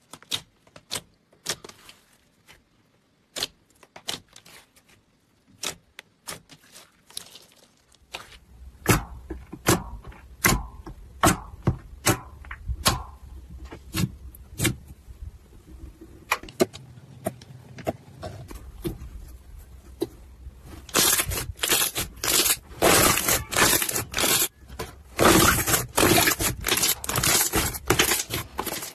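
Hands kneading and pressing slime, making sticky clicks and pops. The clicks are sparse at first, come thicker about eight seconds in, and grow dense and louder from about twenty-one seconds in.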